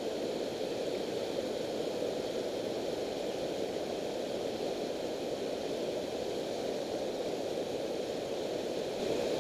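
Steady rush of river water pouring over a low dam spillway, an even noise without breaks or changes.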